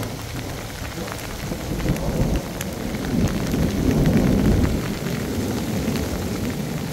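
Heavy rain falling steadily, with scattered close drops ticking, and a low rumble of thunder that swells about the middle and dies away.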